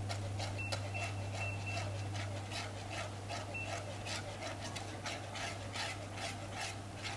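Wire whisk beating coconut milk and agar-agar mixture in a pan, brisk swishing strokes about three to four a second, over a steady low hum.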